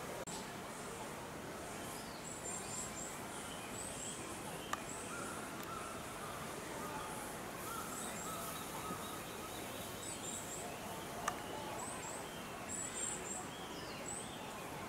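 Birds calling outdoors: short, repeated high chirps in quick pairs and threes, with lower calls in between, over a steady background hiss. Two brief sharp clicks stand out.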